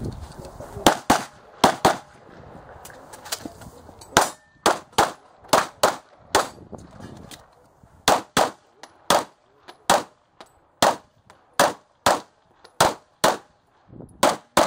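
Pistol fired in fast strings of sharp shots, two to four a second, with a break of about a second and a half midway before the firing picks up again.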